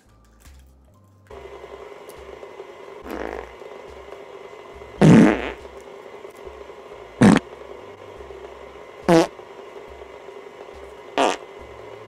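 A run of fart noises, one about every two seconds: a softer one about three seconds in, then four loud ones, the longest and loudest about five seconds in.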